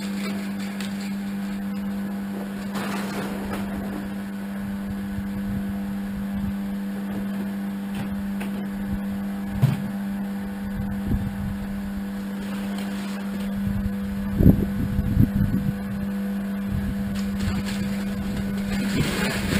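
An electric motor running with a steady hum. A few dull knocks and thumps come over it, the loudest about fifteen seconds in.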